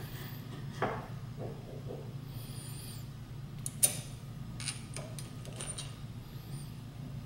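Light clicks and taps of a metal ball-screw bearing block being handled and fitted against a milling machine's table, the sharpest click about four seconds in, over a steady low hum.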